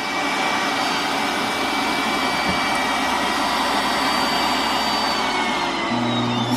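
iRobot Clean Base automatic dirt disposal running, its suction motor pulling debris out of the Roomba s9+'s bin with a steady loud rush and a thin whine. Near the end the whine glides down and a lower hum sets in.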